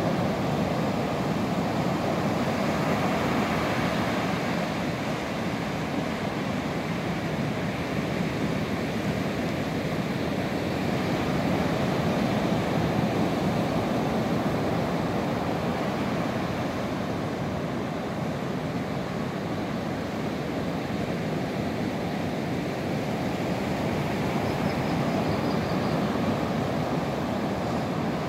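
Ocean surf breaking and washing up a sandy beach: a steady rushing that swells and eases slowly.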